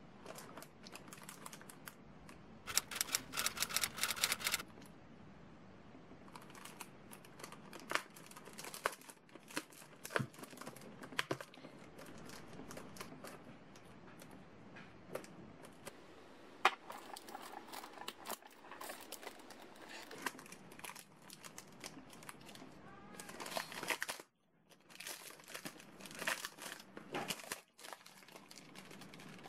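Plastic gift packaging crinkling and tearing as it is opened by hand, among irregular clicks and taps of handling. The crinkling comes in dense bursts a few seconds in and again near the end.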